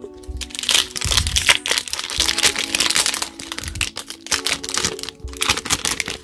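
Foil Pokémon booster-pack wrapper crinkling and crackling as it is handled and torn open, over background music.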